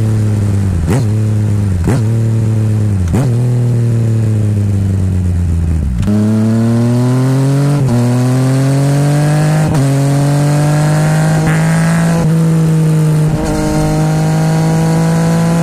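Yamaha MT-09 three-cylinder engine through a full titanium Akrapovic exhaust with no baffle, ridden on the road: the note holds and slowly falls for about six seconds, then climbs steadily under acceleration, cut by several brief dips as the rider changes up through the gears.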